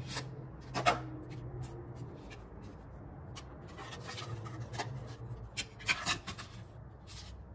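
Paper handling: a small card envelope and folded cards being opened and shifted in the hands, with short rustles and crisp taps, the sharpest about a second in and around six seconds.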